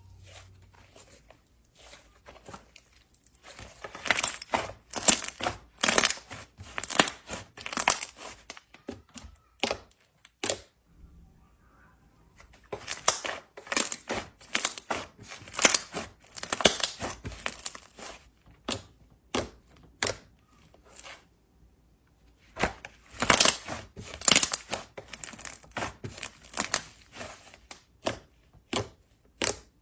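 Thick slime being stretched, squeezed and kneaded by hand, crackling and popping as air pockets burst. The crackles come in three long bouts of rapid sharp pops with quieter gaps, then scattered single pops near the end.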